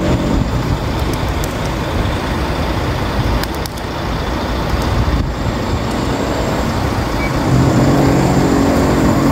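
Steady rumble and running noise of a moving vehicle, with a low, even hum that grows louder near the end.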